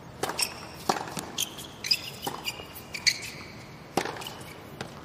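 Tennis rally on a hard court: sharp racket strikes and ball bounces about a second apart, with short high squeaks of sneakers on the court between the shots.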